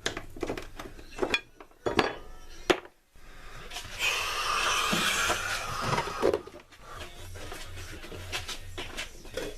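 Tools and small metal and wooden objects being handled on a workbench: a run of sharp knocks and clinks, then a steady noise lasting about two seconds midway, then scattered clicks over a low hum.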